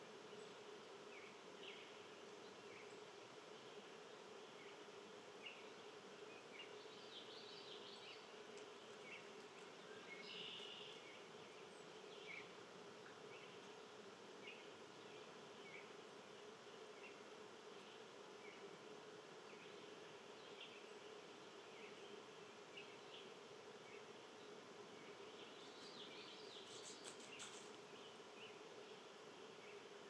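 Faint outdoor nature sound: a steady buzzing hum of insects, with scattered short high chirps throughout and a denser flurry of them near the end.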